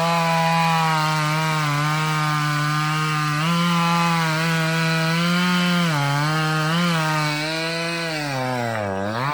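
Two-stroke chainsaw running at high revs while cutting into wood. Its pitch sags briefly about six seconds in, then drops sharply near the end before revving back up.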